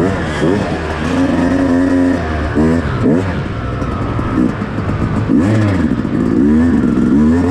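Motocross dirt bike engine revving hard, its pitch climbing and dropping several times as the throttle is opened and shut, with a short steady stretch in between.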